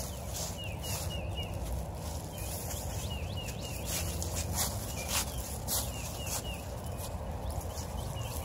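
Footsteps crunching and rustling through dry fallen leaves on grass as a dog and its walker move along. A small bird chirps in quick runs of three or four short falling notes, repeated every second or so.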